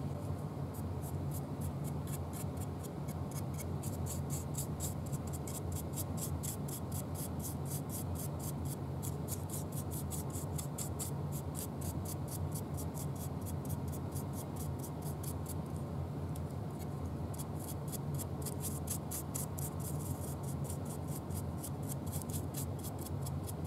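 Stiff-bristle brush dry-brushing paint onto a 3D-printed tree trunk: rapid, repeated scrubbing strokes of bristles on the plastic, over a steady low hum.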